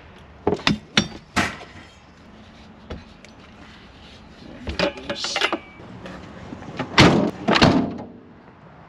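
A BMX bike knocking and clanking as it is lifted and slid into the back of a camper van, then the van's rear doors being shut: two heavy thuds about half a second apart near the end, the loudest sounds in the clip.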